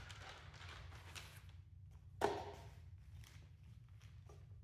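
Thin washi paper rustling as a sheet is lifted and handled, with one sharp thump about two seconds in and a few light taps after it, over a steady low hum.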